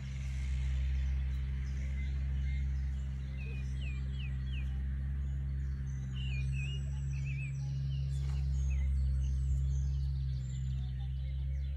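Small birds chirping in short, quick gliding calls over a loud, steady low hum.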